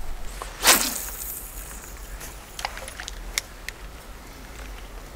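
A short splash of water about a second in as a tiger trout is released by hand into the lake, its hiss trailing off quickly, followed by a few faint clicks.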